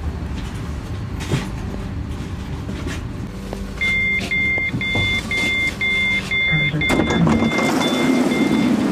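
Newag Impuls electric multiple unit rumbling as it comes to a stop, then its door-release button being pressed and the door warning beeping in a quick series of short beeps, about two a second, for some five seconds. Near the end the running rumble stops and a rush of noise comes in as the sliding door opens.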